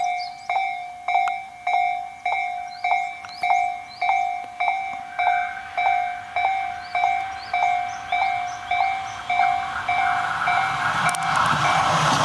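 Japanese railway level-crossing warning bell ringing its steady clanging strokes, about two a second, signalling a train's approach. A Tobu Noda Line electric train's running noise grows underneath and swells to a loud rush as the train reaches the crossing near the end, drowning out the bell.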